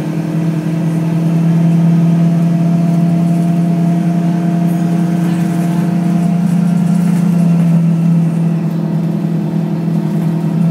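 Scania L94UB city bus's CNG engine heard from inside the passenger cabin as the bus pulls away. A steady low drone grows louder over the first couple of seconds, then holds at an even pitch.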